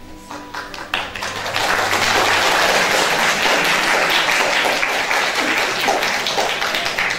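Audience applauding, building up about a second in and holding steady, with the last of the music fading out under it at the start.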